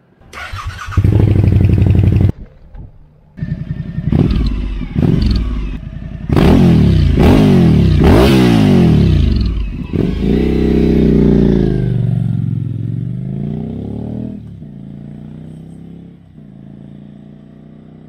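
Suzuki V-Strom 1050XT's V-twin engine through a Dominator ST round slip-on exhaust with no dB killer: a loud burst of engine, then a few short revs, then several rising runs as it pulls away hard. After a long drop and rise in pitch it fades steadily as the bike rides off into the distance.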